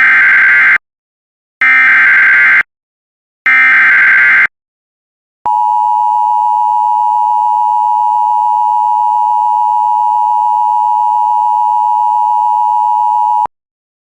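Emergency Alert System tones: three short bursts of the SAME header's warbling digital data, then the eight-second EAS attention signal, a steady two-tone beep of 853 and 960 Hz that cuts off sharply, marking the start of an alert message.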